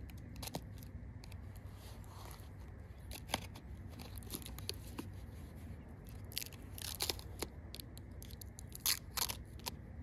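Paper wrapping crinkling and tearing by hand in irregular crackles as an axe head is unwrapped, with a few louder tears about seven and nine seconds in, over a low steady rumble.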